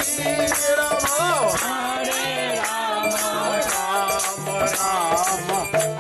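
Devotional kirtan: voices singing a gliding chant melody over jingling metallic percussion that strikes a steady beat a few times a second, with a low repeated note underneath.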